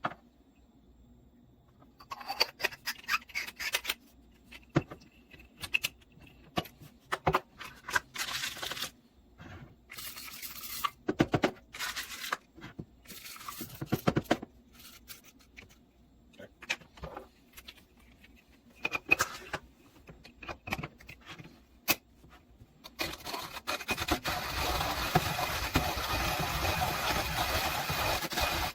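Scattered clicks, knocks and rustles as a coffee grinder and its parts are handled. Then, about 23 seconds in, a burr coffee grinder starts a steady, gritty crunching as it grinds beans.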